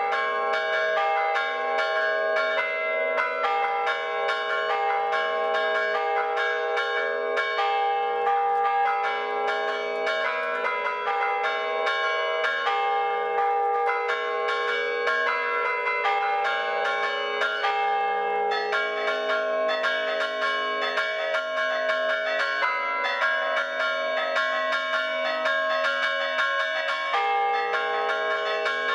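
Several church bells chimed by one ringer working ropes with both hands and feet, keeping up a fast, continuous rhythmic peal of overlapping strikes on several pitches. The pattern shifts about two-thirds of the way through and again near the end.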